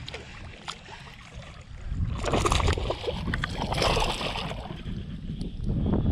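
Wind buffeting the microphone as a low rumble, with a stretch of water splashing and crackling from about two seconds in to about four and a half.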